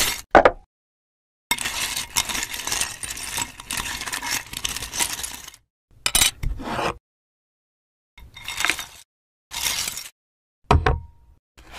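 Broken pieces of hard plastic rattling and clinking against a glass bowl as a hand shakes and stirs them: one long run of rattling, then several short bursts, the last ending in a brief ringing note.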